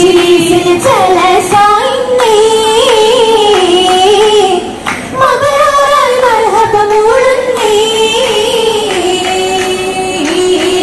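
Oppana song: girls' voices singing a Mappilappattu melody together in stepped phrases, amplified through loudspeakers.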